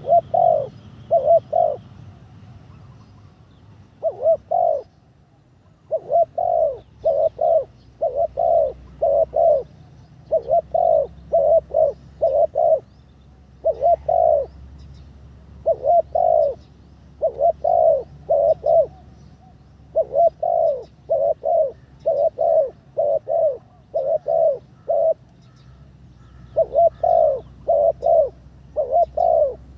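Spotted dove cooing over and over, a decoy bird in training: short, low coos in runs of two to six, separated by brief pauses.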